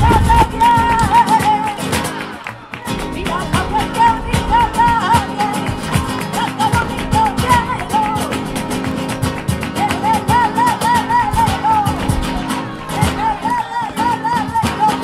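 Live flamenco music: a woman sings wavering, ornamented vocal runs over acoustic guitar, cajón and drums, with hand clapping. The music drops away briefly about two and a half seconds in, then carries on.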